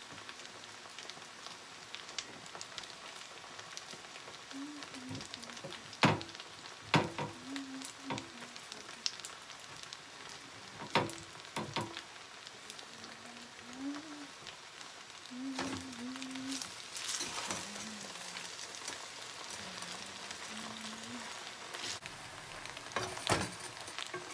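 Spaghetti in sauce sizzling steadily in a pot on the stove, with a few sharp clicks and knocks, the loudest about six and seven seconds in.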